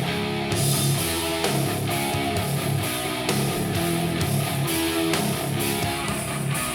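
Guitar-led instrumental music with strummed guitar over a steady beat, played back through a pair of desktop computer speakers and recorded in the room.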